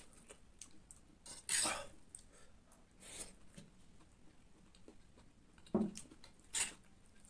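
Metal spoon scraping and clinking against a steel plate of scrambled egg, a few short separate scrapes with the loudest about a second and a half in and near the end, with quiet chewing between.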